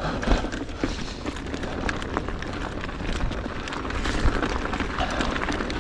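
Mountain bike moving over a snowy trail, heard through a helmet or chest-mounted action camera: steady wind rumble on the microphone, tyre noise, and frequent short clicks and rattles from the bike.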